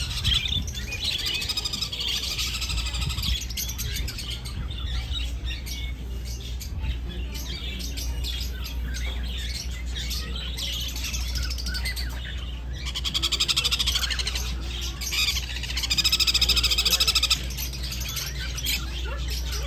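Birds chirping and trilling, with two louder stretches of rapid song in the second half, over a steady low hum.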